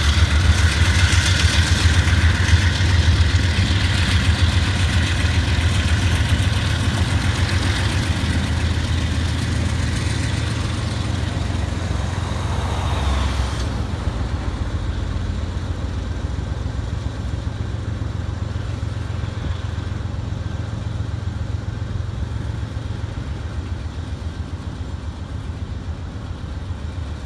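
Diesel freight locomotives running past, with a steady low engine drone that slowly fades as they pull away, mixed with the rumble of rolling freight cars. A higher rushing sound drops away about halfway through.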